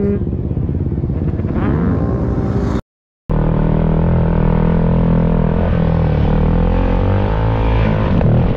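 2018 Yamaha YZ250F's 250 cc four-stroke single-cylinder engine running, pitch rising and falling with throttle as the bike is ridden. The sound cuts out completely for about half a second roughly three seconds in, then resumes.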